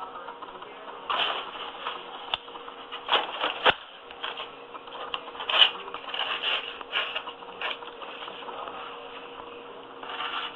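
Irregular scraping, rustling and a few sharp clicks from hands working carpet and seaming tape into a cut-out patch area.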